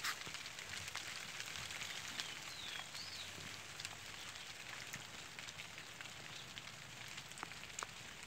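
Steady rain falling on grass and tree leaves: an even hiss with many scattered drop ticks.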